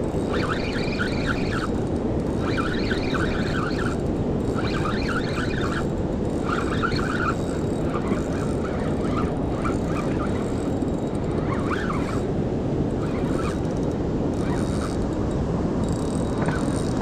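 Steady rush of river water, with a bird calling in a run of short, repeated phrases about once a second for the first several seconds, then only now and then.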